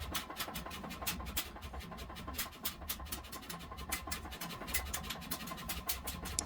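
Rapid, evenly repeated scratching strokes on metal, several a second, over a low steady hum.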